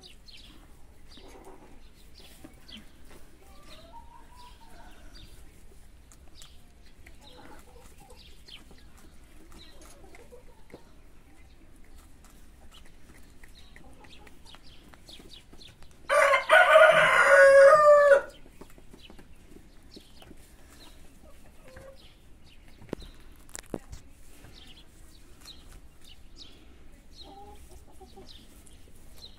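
Brown hens clucking softly, with one loud rooster crow lasting about two seconds just past the middle.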